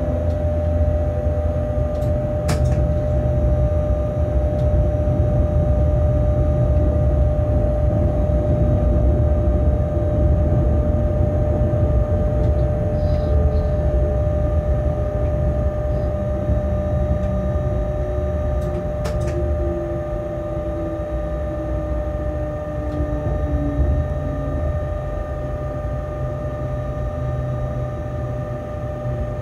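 Inside the cab of a locomotive running light: a steady low rumble and hum from the moving locomotive, with a couple of sharp clicks and a faint whine falling slowly in pitch past the middle.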